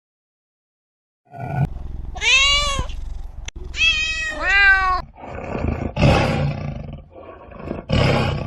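Animal calls: after a second of silence, several pitched cries, each rising and then falling in pitch, followed by rougher, noisier calls.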